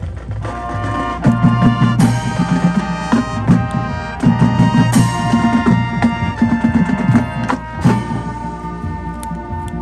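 Marching band playing: sustained brass chords over a drumline, with sharp loud accents about 2, 5 and 8 seconds in.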